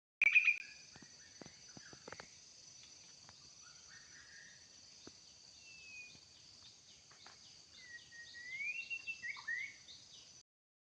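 White-rumped shama singing: whistled notes that slide up and down, sparse at first and coming thicker and louder from about eight seconds in, with a loud short note at the very start and a few clicks in the first two seconds. A steady high insect buzz runs behind it.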